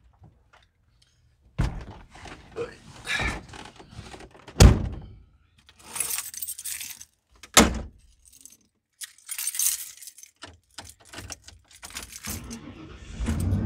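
Keys jangling, rustling and knocks as someone climbs into a 1995 Ford F-150's cab, with the door shutting about four and a half seconds in. Near the end the truck's 5.0 V8 starts and settles into a steady idle.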